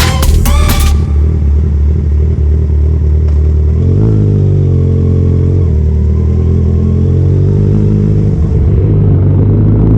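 Electronic music cuts off about a second in, giving way to a Kawasaki Ninja 1000's inline-four engine running through an SC-Project aftermarket exhaust. The engine note is low and steady, rises in revs about four seconds in, drops back a couple of seconds later, and climbs again near the end.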